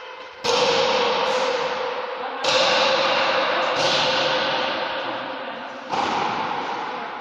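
Rubber pelota of paleta goma argentina struck by wooden paddles and bouncing off the walls of a trinquete court during a rally: about six sharp smacks at irregular intervals, each ringing out with a long echo.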